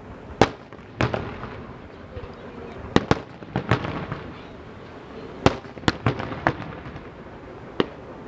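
Aerial fireworks shells bursting: about a dozen sharp bangs at uneven intervals, some in quick pairs, each trailing off in a short rumble.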